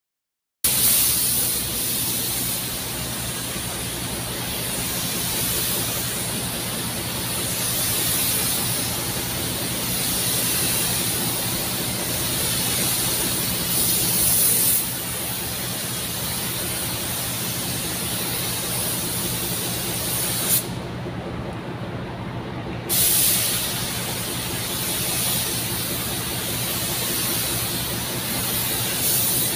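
Gravity-feed spray gun hissing steadily as compressed air atomises pearl coat onto a car's bonnet and bumper. About two-thirds of the way through, the hiss stops for about two seconds, then resumes. A steady low hum runs underneath.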